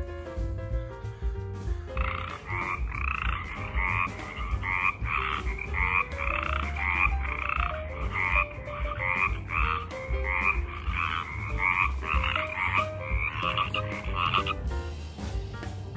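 A chorus of frogs in a pond croaking, many overlapping two-part calls at several a second. It starts about two seconds in and stops fairly abruptly near the end, over background music with a steady beat.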